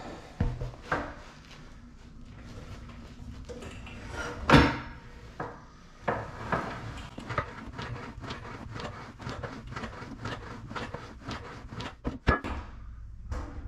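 Titan Fitness compact leg press working through reps: the plate-loaded sled runs along its steel rails with a string of clicks and rattles from the carriage and iron plates. There is a heavy knock about four and a half seconds in and a sharp double knock near the end.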